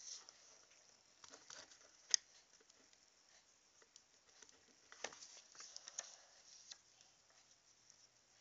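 Faint handling noise: scattered soft rustles and light clicks, with one sharp click about two seconds in and a few more around the middle.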